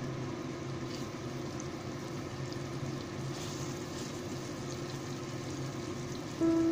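Crushed chili, shallot and garlic paste frying in hot oil in a pan, a steady sizzle with small pops, stirred with chopsticks. Music comes in near the end.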